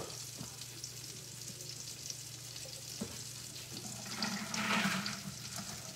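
Breaded pork steaks frying in butter in a skillet: a steady sizzle with fine crackling over a low hum. A louder stretch of noise comes about four seconds in and lasts about a second.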